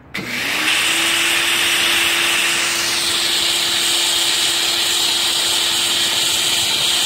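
Greenworks GPW1704 1700-PSI electric pressure washer starting up as the trigger is pulled, then running: a steady motor-and-pump hum under a loud, even hiss of soapy water jetting from the foam-cannon nozzle.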